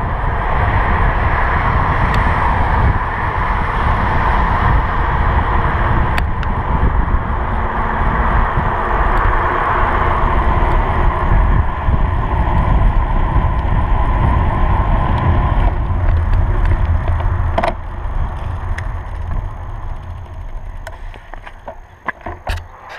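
Wind rushing over a handlebar-mounted camera's microphone on a moving road bike, with tyre noise from the road; a steady low rumble. It eases a few seconds before the end and falls away as the bike slows to a stop, with a few sharp clicks.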